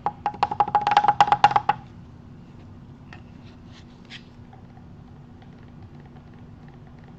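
A stir stick clacking rapidly against the side of a mixing cup of resin: about a dozen quick knocks in under two seconds, with a ringing tone beneath them. After that come only a few faint ticks.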